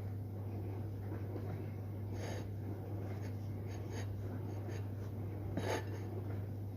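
A few short rustling, scraping handling sounds: one about two seconds in, light ticks around the middle and another near the end, over a steady low electrical hum.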